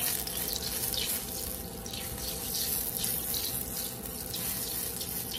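Butter sizzling in hot olive oil in a stainless steel skillet over high heat, a steady hiss, with a faint steady hum underneath.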